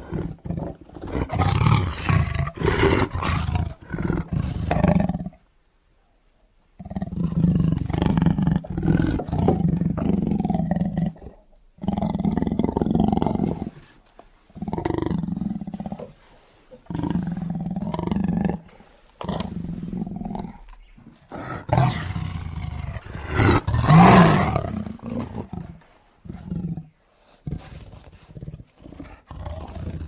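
A tiger roaring over and over, in calls of varying length separated by short pauses. There is a gap of about a second and a half about five seconds in, and the loudest roar comes about three quarters of the way through.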